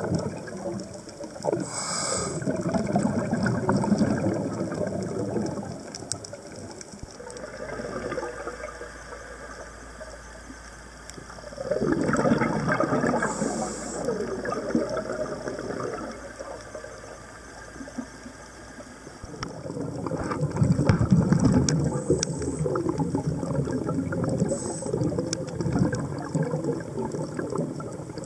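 Scuba diver's regulator underwater: exhaled air bubbling out in three long bursts several seconds apart, with quieter stretches between breaths.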